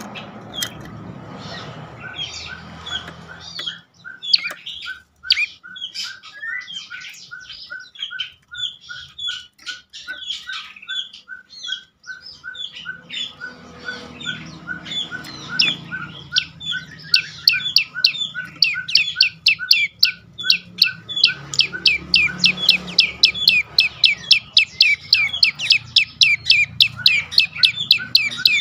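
Prenjak lumut calling: sharp downward-sweeping chirps over a short, lower note that repeats about twice a second. Past the middle the chirps turn into a loud, rapid series of about three or four a second.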